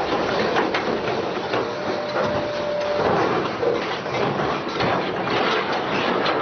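Heavy machinery working: a continuous mechanical clatter of knocks and rattles, with a brief steady whine about two seconds in.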